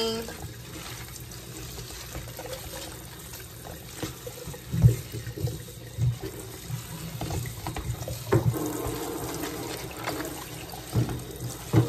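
Kitchen faucet running steadily into a stainless steel sink over chopped cabbage in a plastic colander, as hands turn and rinse the leaves. A few dull knocks come through, most of them in the second half.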